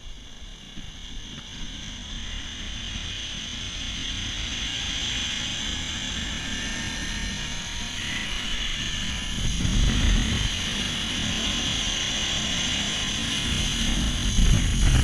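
Zipline trolley pulleys running along the cable: a steady high whirring whine that grows louder as the rider picks up speed. Wind buffets the microphone with a low rumble, strongest from about ten seconds in.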